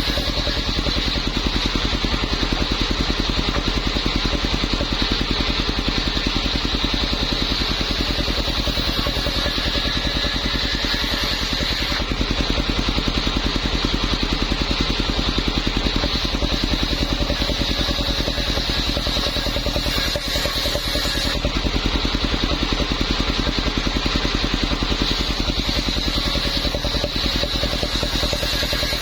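Engine-driven circular saw running steadily, its small engine pulsing evenly with a high whine from the spinning blade.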